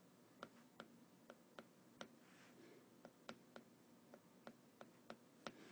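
Faint, irregular clicks, two or three a second, of a stylus tapping a tablet's glass screen while handwriting.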